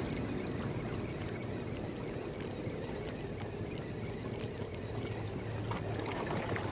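Hemus Corvet LT 1000 spinning reel being cranked steadily to wind in a hooked fish, its light whir and faint ticks over a steady low rumble of wind and sea.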